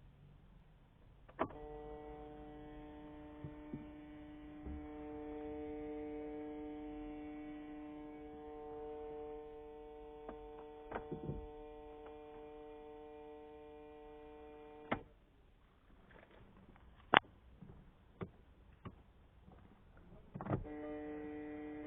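Steady electrical hum on the left side of a Škoda Octavia A5's cabin, heard with the engine switched off; it stops only when the key is taken out of the ignition, and its cause is unknown. It comes on with a click a second or so in, cuts off with a click about two-thirds of the way through, and after a quieter stretch with a few clicks it comes back on with a click near the end.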